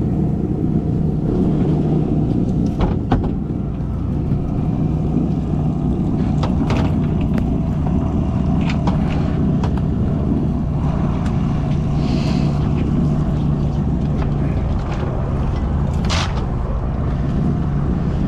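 Boat motor running steadily with the boat under way, with a few short sharp knocks or ticks over it.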